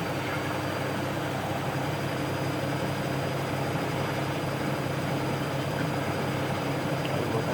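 Siemens Extraklasse F1300A washing machine running: a steady motor drone with a low hum and a faint high, steady whine.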